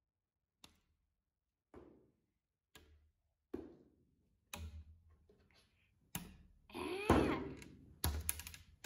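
Rubbery sticky hand toy slapping down on a hard tabletop again and again to pick up coffee beans, a dull thunk about once a second. About seven seconds in comes a longer, louder burst of noise.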